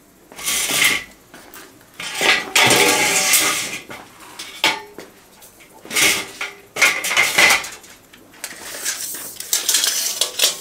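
Clinking and scraping of hard objects in about five separate bursts, each half a second to a second and a half long, with quiet gaps between.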